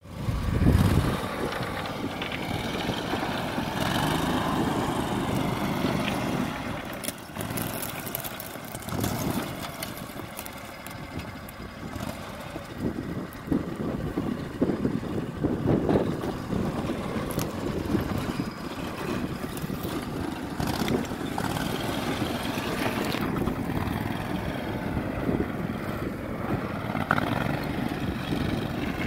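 Max Buffalo six-wheel amphibious ATV's engine running steadily as it drives over rough, rocky ground, with a few scattered knocks.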